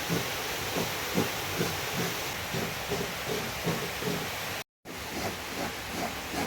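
Steady hiss of heavy rain, with soft, irregular low knocks two or three times a second, broken by a split-second gap about two-thirds through.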